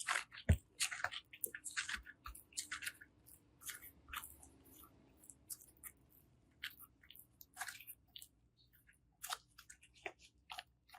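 Slime being worked by hand, giving quiet, irregular crackles and clicks, busiest at first and thinning out later.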